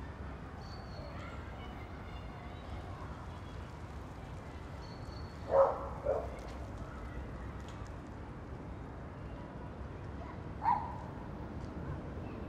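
A dog barking twice in quick succession, then once more a few seconds later, over a steady low background hum.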